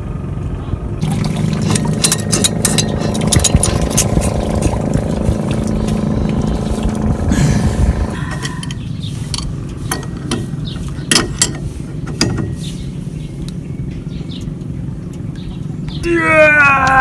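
Metal clinks and knocks as a bronze propeller is worked onto its shaft and its nut tightened with an adjustable wrench, over a steady motor hum that fades out about halfway through. Near the end a man's drawn-out voice falls in pitch.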